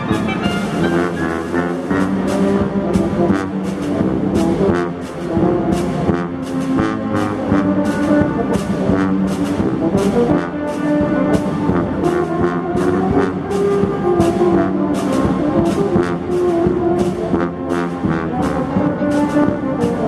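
Instrumental band music: brass instruments holding and moving a melody over an evenly repeating percussion beat.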